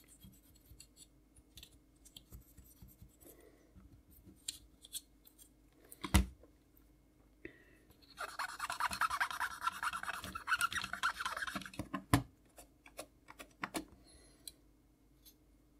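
Wet cotton bud scrubbing the metal and plastic frame of an Amiga A600's floppy drive: light scratching at first, then a steady scratchy rubbing for about four seconds in the middle, with two sharp clicks, one before the rubbing and one as it ends.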